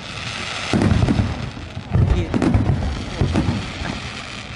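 Fireworks display: a brief hiss, then aerial shells bursting in quick succession, a rapid run of deep booms with sharp crackling.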